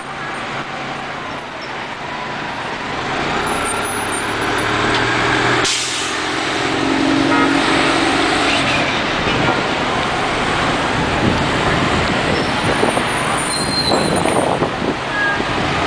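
City transit bus moving off and driving away through street traffic, its engine running under steady traffic noise that grows louder. A brief low tone sounds about six seconds in.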